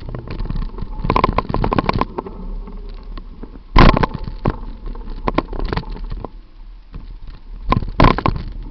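Bicycle rattling and clattering as it is wheeled along a walkway and bumped down a flight of steps: irregular knocks, with one loud bang about four seconds in.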